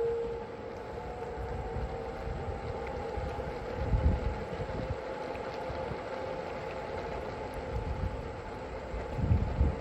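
Wind buffeting a body-mounted phone microphone during a ride, with a steady motor hum underneath. The wind gusts louder about four seconds in and again near the end.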